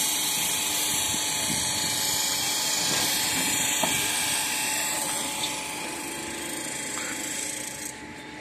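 Steady, high-pitched whining hiss of construction machinery running. It eases a little over the last few seconds and drops off sharply near the end.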